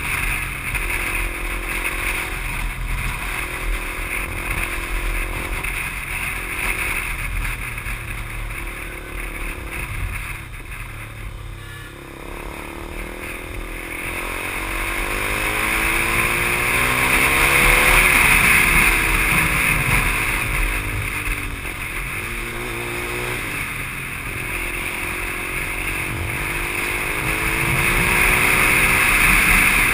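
KTM 390 Duke's single-cylinder engine running under way, heard from the rider's helmet, with a steady rush of wind. The engine's pitch rises and falls with the throttle: it eases off and quietens about a third of the way in, then builds again, loudest a little past halfway and near the end.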